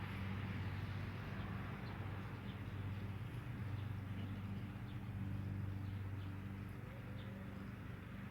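A steady low hum, like a small electric motor running, with faint short chirps above it.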